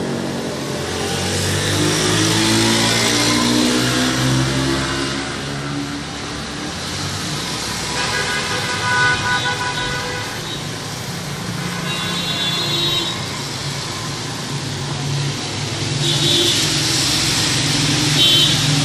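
Road traffic: vehicle engines running and passing, with a few short high-pitched horn toots in the second half.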